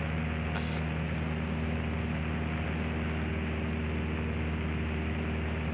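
Cessna 152's four-cylinder Lycoming engine and propeller droning steadily in flight, heard inside the cabin with a constant rush of airflow.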